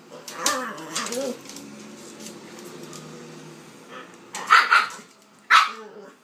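Dogs at play: a dog growling with a low, steady growl, then three sharp barks in the second half.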